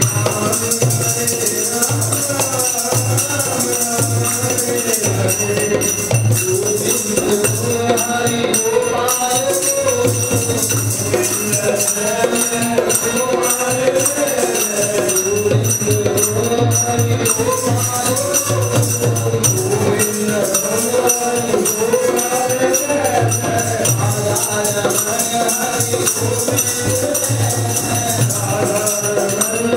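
Devotional group singing with steady jingling hand percussion keeping the beat.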